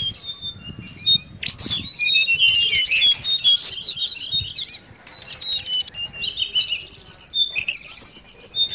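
Caged blue flycatcher (tledekan laut) singing a fast, jumbled twittering song of high chirps and trills. The song begins after a short lull about a second and a half in, with a few sharp clicks mixed in.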